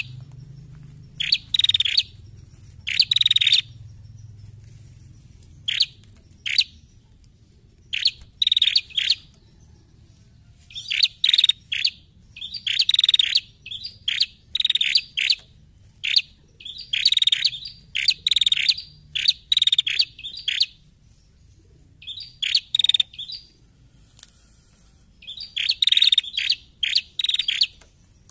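Ashy tailorbird (prenjak kepala merah) calling: clusters of quick, sharp chip notes repeated in bursts, with a lull of a few seconds early on and denser runs through the middle and near the end. The calls serve as a lure recording to draw other tailorbirds into song.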